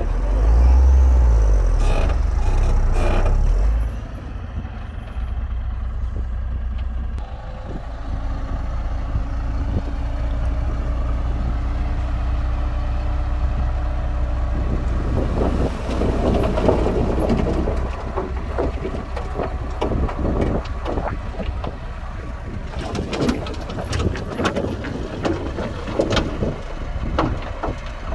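Diesel engines of heavy earthmoving machinery running under load, loudest for the first four seconds and steadier after. From about halfway there are repeated metallic clanks and rattles.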